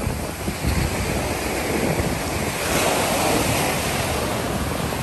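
Surf breaking and washing up a sandy beach, with wind buffeting the microphone. One wave swells louder a little past halfway through.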